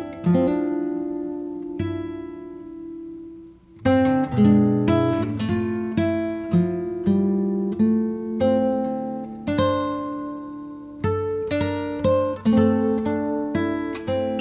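Background music of acoustic guitar, picked notes and strummed chords with no singing, briefly dropping away about four seconds in before the next phrase starts.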